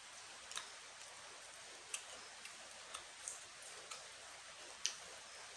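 Steady hiss of rain falling, with a handful of short, sharp ticks scattered through it, the loudest near the end.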